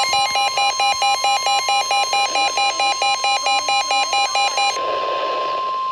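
Emergency Alert System attention signal: a steady single-pitch warning tone with a pulsing beeping alarm over it at about four beeps a second. The beeping stops a little before the end, leaving the steady tone alone until it cuts off.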